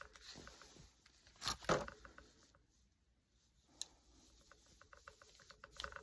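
Faint handling of a Leatherman Rebar multitool and its leather sheath: a couple of scuffs and clicks, a single sharp click, then a quick run of light ticks near the end.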